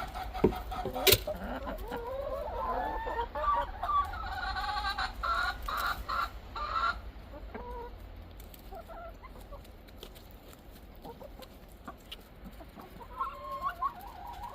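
A flock of backyard hens clucking and calling, busiest for the first several seconds and then thinning to scattered clucks, with a few more calls near the end. A couple of sharp knocks sound around the first second.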